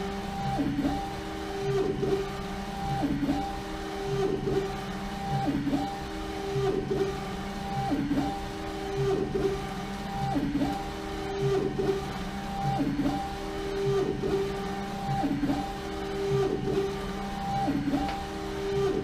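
LogoJet UVx60XL UV flatbed printer with a rotary jig, its print head carriage running back and forth over a bottle while printing a full-wrap image. It makes a steady motor whine that dips in pitch each time the carriage reverses, about once a second.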